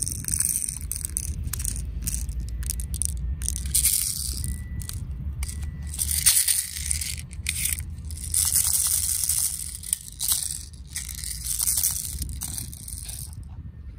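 Hands loading plastic BBs into an airsoft pistol magazine: fingers rustling and scraping on the plastic, with many small clicks, over a steady low rumble.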